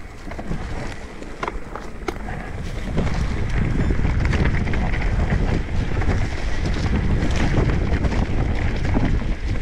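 Wind buffeting the microphone of a camera on a mountain biker riding a dirt trail, with knocks and rattles from the bike over the ground in the first few seconds. The wind rumble gets much louder about three seconds in and stays loud.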